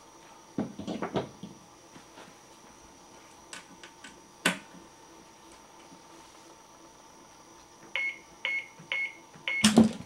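A cluster of handling knocks about half a second in and a single sharp click midway. Near the end come four short electronic beeps about half a second apart, then a loud clunk as the front of a black box comes open.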